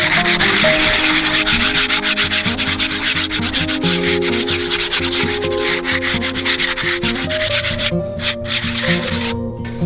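Continuous rapid scraping or rubbing, with brief breaks near the end, over background music with held notes.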